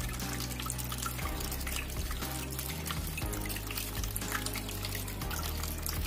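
Water trickling and splashing from the spouts of clay pots in a small tiered cement tabletop fountain, over background music.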